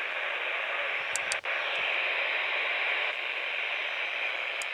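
Steady static hiss from a NOAA weather radio receiver with no broadcast getting through, broken by a brief dropout about one and a half seconds in.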